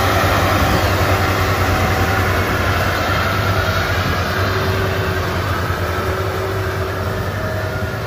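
Maxxi Bimo 102L rice combine harvester running steadily while cutting and threshing paddy, a loud constant mechanical drone with a low hum. It slowly grows quieter as the machine moves away.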